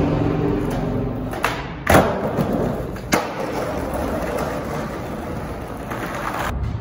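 Skateboard wheels rolling on rough concrete, with three sharp clacks of the board about one and a half, two and three seconds in, the middle one loudest.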